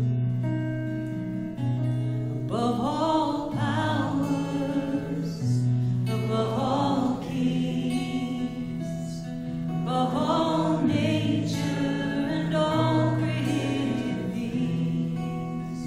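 A hymn or worship song being sung, with phrases rising and falling over held low accompaniment notes and some guitar.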